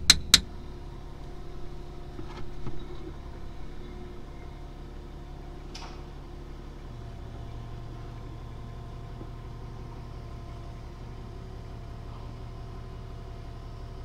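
Quick metal-on-metal hammer blows on a punch, knocking a drain hole into the bulldozer's steel oil filter canister, right at the start. Then a steady low mechanical hum of a running engine or machine.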